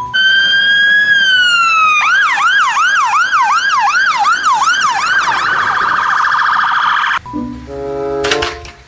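Fire engine siren: one slow rise and fall, then a quick yelp sweeping about three times a second, then a fast warble, cutting off suddenly about seven seconds in. A short clack follows near the end.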